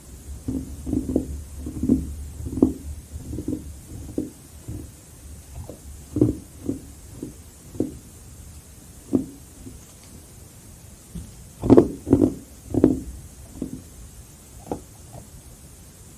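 Close-miked chewing of carbonated crushed ice: irregular crunches, several a second at first, then sparser, with a cluster of the loudest crunches about twelve seconds in.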